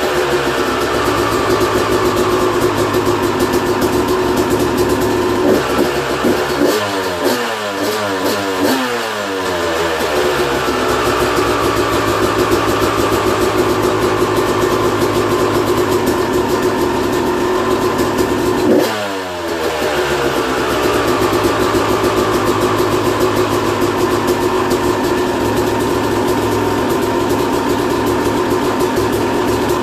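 2001 Yamaha YZ250 single-cylinder two-stroke engine idling steadily after a top-end rebuild and new jets. It is revved with a quick run of throttle blips between about six and ten seconds in and once more near twenty seconds, and the revs fall back to idle each time.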